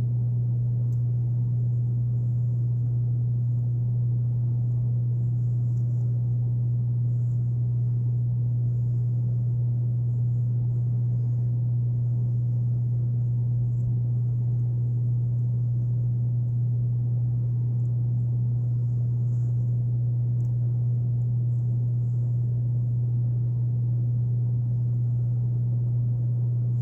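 Air conditioner running with a loud, steady, even hum.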